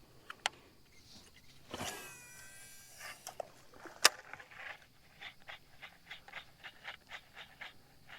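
Fishing cast and retrieve on a baitcasting reel: a whirring cast about two seconds in, a sharp click about four seconds in, then the reel being cranked with a steady run of about three soft ticks a second.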